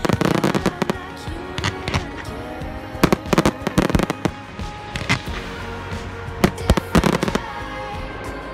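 Aerial firework shells bursting, in clusters of sharp bangs: at the start, about two seconds in, three to four seconds in and about seven seconds in. Music plays underneath throughout.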